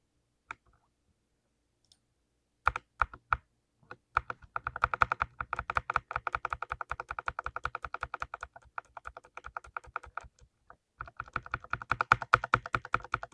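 Full-size mechanical keyboard with lubed, clicky blue switches being typed on. A few single key presses come first, then fast continuous typing, a brief pause, and fast typing again near the end.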